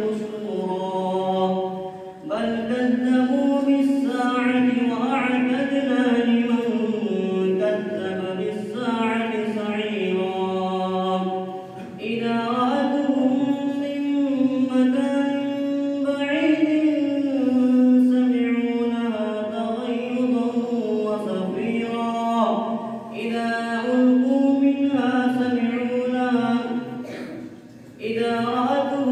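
A single voice reciting the Quran in the melodic tajweed style of a memorisation competition: long drawn-out phrases that rise and fall in pitch, with short breaks for breath about every ten seconds.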